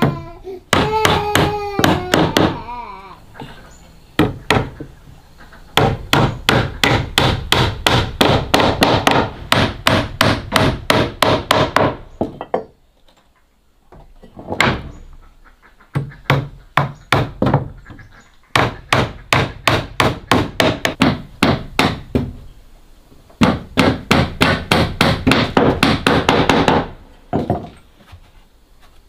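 Hammer driving nails into wooden wall planks in quick runs of about four blows a second, with short pauses between runs. A small child whines briefly at the start.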